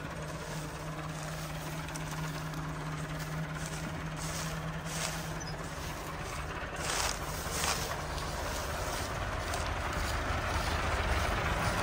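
Massey Ferguson 385 tractor's diesel engine running steadily, its low rumble growing louder toward the end.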